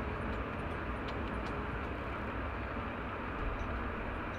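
Faint clicks of Nokia 216 keypad buttons pressed in quick succession while text is typed, mostly in the first second and a half, over a steady background rumble and hiss.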